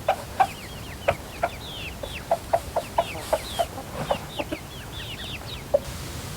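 Chickens clucking in short, sharp repeated notes, several a second, with quick high falling chirps over them.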